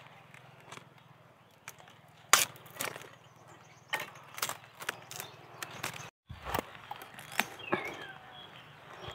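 Irregular sharp snaps and crackles of dry bamboo, a dozen or so scattered through, the loudest about two seconds in.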